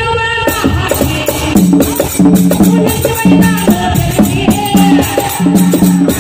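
Bhajan music: a man's singing phrase ends about half a second in, then a harmonium plays a short repeating melodic phrase over steady rattling, jingling percussion.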